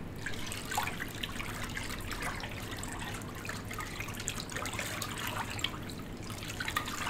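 About 20 litres of water in a container being stirred vigorously to mix in laundry detergent: steady sloshing with small irregular splashes.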